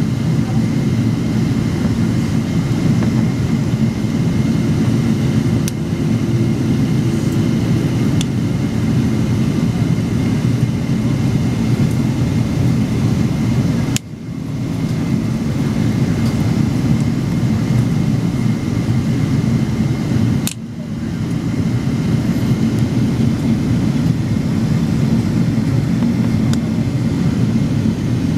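Steady cabin roar of a Boeing 777-200ER on approach, heard from a window seat: jet engine and airflow noise with a faint steady high whine. The roar drops out briefly with a click twice, about halfway through and about two-thirds through.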